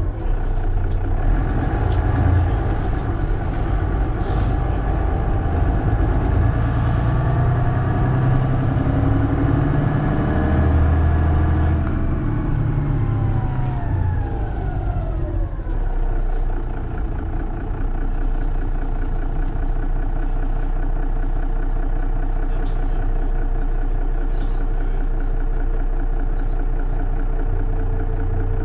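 Mercedes-Benz Citaro city bus heard from inside, its diesel engine and driveline rising in pitch as the bus accelerates hard. About halfway through, a whine falls in pitch as the bus slows, and the engine then settles to a steady idle.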